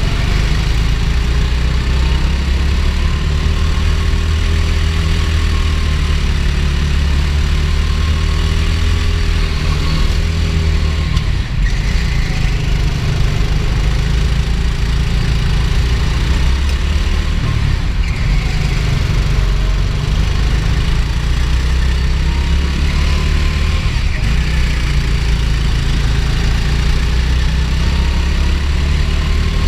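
Go-kart engine running under load through a lap, its pitch rising and falling every few seconds as the kart speeds up on the straights and slows for the corners, over a heavy steady rumble.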